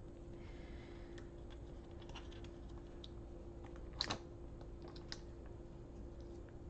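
Small clicks and crinkles of cellophane-wrapped plastic gouache paint pans being handled and lifted out of a plastic storage tray, with a sharper click about four seconds in.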